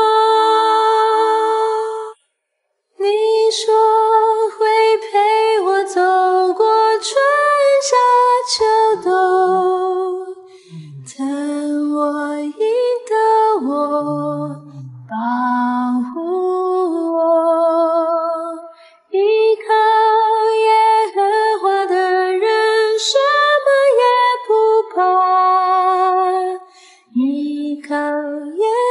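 A cappella singing, mostly female voices, carrying a slow melody with more than one voice line at once. It stops briefly about two seconds in, then goes on.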